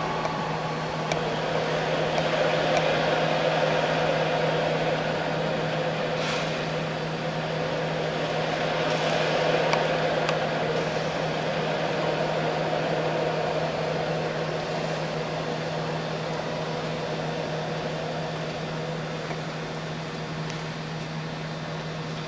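Electric aircraft tow tractor's drive motor running as it moves a plane held by its nose wheel, over a steady low hum. The sound swells over the first half and eases off toward the end.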